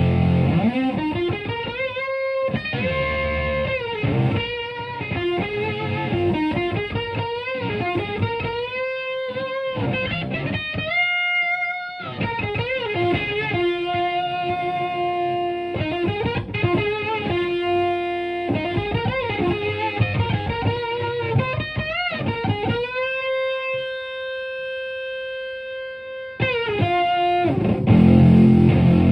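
Stratocaster played through a Univox Superfuzz pedal into a Marshall Plexi amplifier: a distorted single-note lead with string bends and vibrato. Near the end one note is held and slowly fades, then heavier, louder playing comes in.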